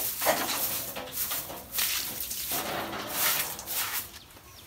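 Water thrown from a plastic dipper splashing onto a concrete pig-pen floor, several splashes in a row.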